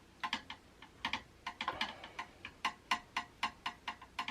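Rapid light metallic clicks, about four to five a second, from a screwdriver tightening the mounting screws of a Scythe Mugen 5 CPU cooler.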